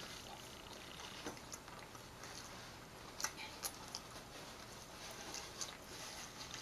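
A person chewing a mouthful of food close to the microphone, quietly: soft wet mouth clicks and smacks, with a few sharper ones about three seconds in.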